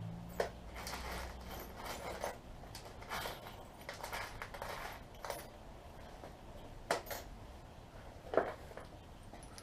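Small metal hardware and tools being handled: light clinks, scrapes and rattles, with a few sharper clicks about half a second in, about seven seconds in and near the end.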